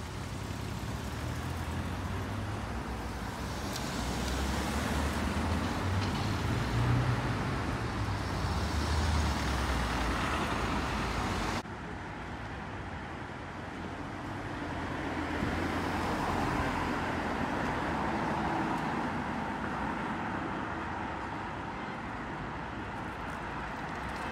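Road traffic: cars driving past with engine and tyre noise, swelling and fading as each vehicle goes by. The sound drops sharply about halfway through, then builds again.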